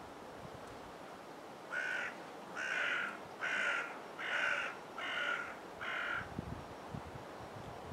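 A bird cawing six times in a row, just under a second apart.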